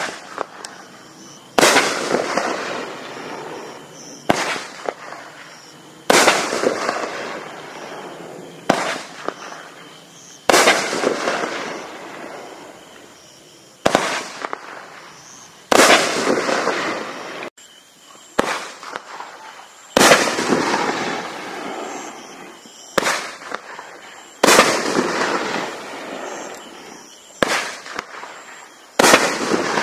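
Consumer fireworks cake with 1.4-inch tubes firing shot after shot. There are about a dozen loud, sharp bangs, one every couple of seconds, and each fades out over a second or two.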